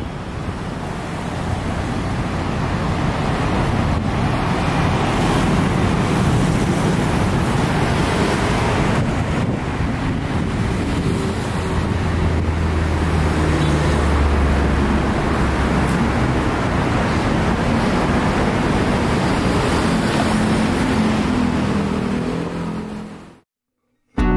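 Steady road traffic from a busy multi-lane city street, cars and motorbikes passing. A deeper engine hum swells about halfway through, then the traffic sound fades out near the end.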